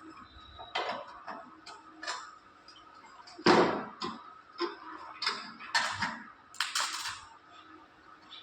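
Irregular clicks and knocks of tools and metal being handled at a welding bench, with one louder knock about three and a half seconds in and a quick run of clatters a couple of seconds later.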